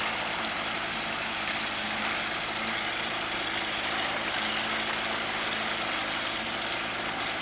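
Outboard motor running steadily at trolling speed, pushing the boat while lures are trolled behind it.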